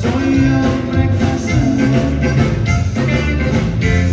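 Live conjunto band playing a dance number, with accordion, electric guitar and drums.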